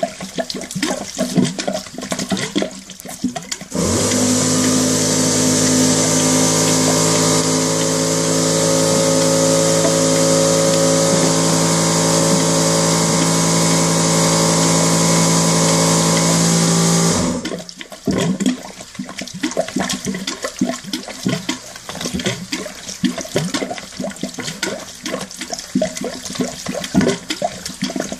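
Heating-system flush water, brown with sludge, pouring from a drain hose and splashing into a ceramic bowl. About four seconds in, a much louder steady rush of water with a low hum starts. It cuts off abruptly some thirteen seconds later, and the splashing outflow goes on.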